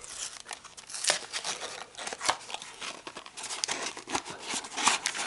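Small cardboard box being opened by hand: an irregular run of rustling, scraping and crinkling as the flaps and an inner sleeve are worked loose.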